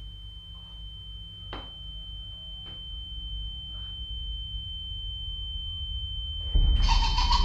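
Horror sound design: a steady high-pitched ringing tone over a low rumbling drone that slowly grows louder, with a couple of faint knocks. Near the end a sudden loud burst of harsh noise cuts in.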